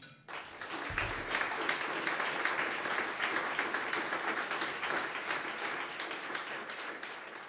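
Small audience applauding. The clapping starts suddenly a fraction of a second in and thins out near the end.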